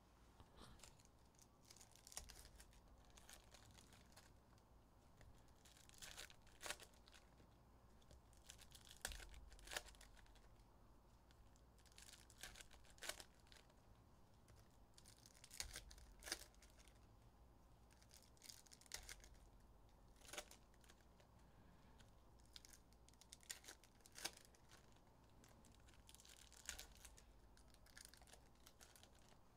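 Faint tearing and crinkling of 2023 Panini Illusions foil card-pack wrappers being ripped open, with short sharp crackles every few seconds.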